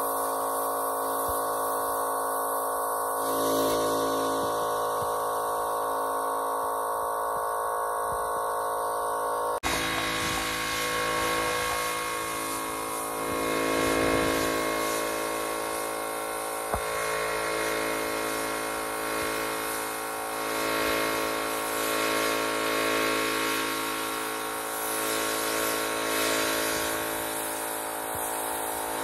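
Small air compressor running steadily with a motor hum, under the hiss of a compressed-air spray gun spraying paint onto the steel trailer frame. The sound shifts abruptly about ten seconds in.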